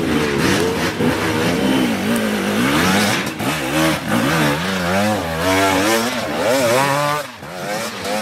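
Enduro dirt bike engine revving up and down over and over, roughly once a second, as it is throttled up a steep rocky climb; the revs drop briefly near the end.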